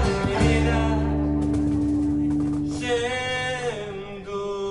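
Live band music: classical guitar and double bass sustain a chord, and from about three seconds in a male voice sings a long held note.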